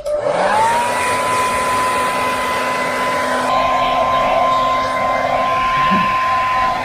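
Handheld hair dryer switched on: its motor spins up within the first second to a steady whine over a rush of blowing air, used to dry a freshly bathed pet.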